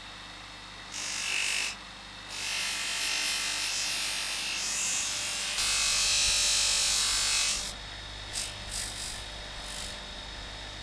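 Hand scraping or scrubbing on the rusty pocket knife, in bursts of hissy noise: a short one, then a long run that is loudest a little past the middle, then a few brief strokes.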